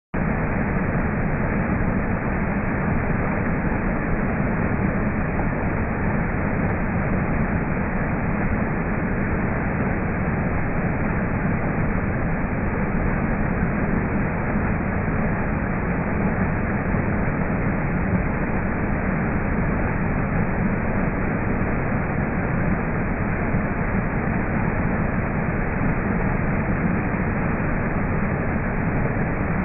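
Waterfall pouring over rocks: a steady, unbroken rush of water with a deep low rumble.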